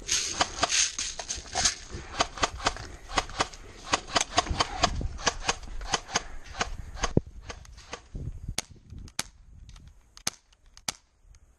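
Airsoft guns firing: a fast, irregular string of sharp pops for about seven seconds, then a few single shots spaced apart near the end.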